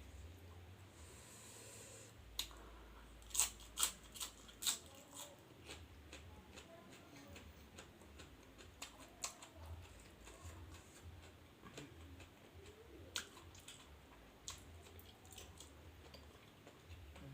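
A person eating close to the microphone: faint chewing with sharp clicks and crunches, a cluster of them about three to five seconds in and a few more later.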